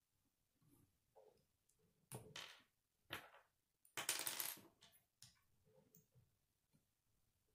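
Plastic K'nex pieces clicking and clattering as hands handle them and fit them together. There are short clicks about two and three seconds in, then a longer, louder rattle about four seconds in.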